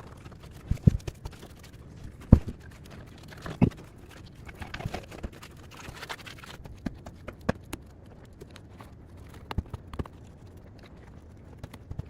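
Irregular knocks and thumps, about a dozen, unevenly spaced, the loudest a little over two seconds in, with faint rustling between them.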